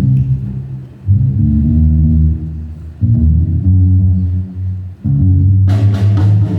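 A band's song intro: a low-pitched guitar riff played alone, repeating in phrases about two seconds long. The drum kit with cymbals comes in near the end.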